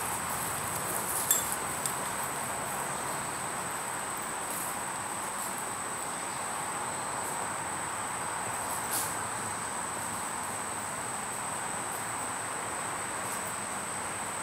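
Steady insect chorus in summer woodland: a continuous high-pitched drone over a constant hiss. A few faint rustles and knocks, about a second in and again near the middle, fit footsteps on dry leaf litter and loose soil.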